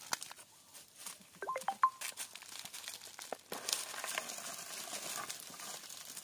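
Rustling and crackling in dry leaves and brush, with a quick run of three or four short high chirps about a second and a half in.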